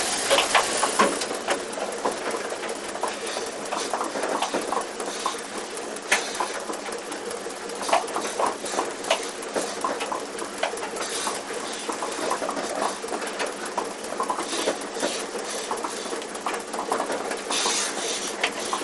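Milking parlour equipment at work: a steady machine hum under a constant, irregular patter of clicks, knocks and metal clatter.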